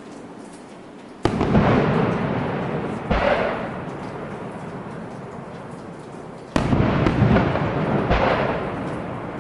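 Fireworks shells bursting: two sharp, loud bangs about five seconds apart, each trailed by a long rumble and a second, softer boom a couple of seconds later.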